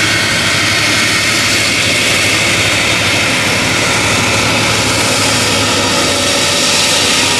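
Beriev Be-200 amphibious aircraft's jet engines running loud and steady: a constant rushing noise with a high whine and a low hum held at one pitch.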